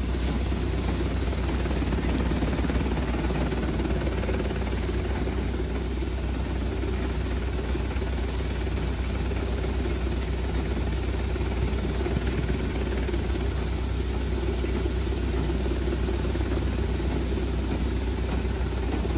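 Tractor-driven Vishwakarma multicrop thresher running steadily while threshing sesame plants: a constant low engine hum with a broad rushing noise over it, unchanging throughout.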